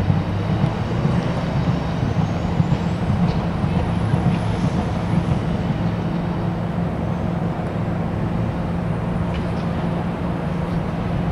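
Diesel locomotive engines running with a steady low drone and a faint high whine above it.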